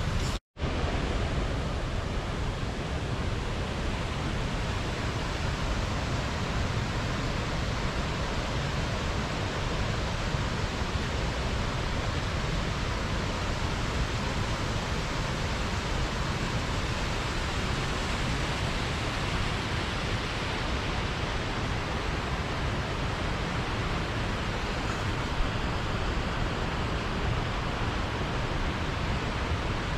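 Water pouring over a small river weir, a steady even rush, broken by a momentary dropout about half a second in.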